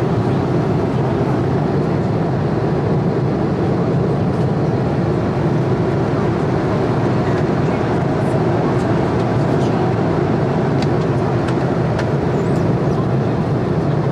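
Steady, loud rumble and rush of a moving vehicle heard from inside the cabin, even and unbroken.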